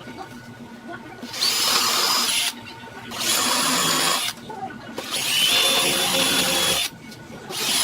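Angle grinder run in four short bursts of about one to two seconds each, a high whine over a hiss, switched off briefly between bursts.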